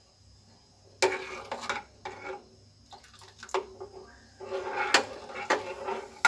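A steel spoon stirs milk in a saucepan, scraping and clinking against the pan in irregular bursts from about a second in. This is the stirring as lemon juice curdles the milk into chhena.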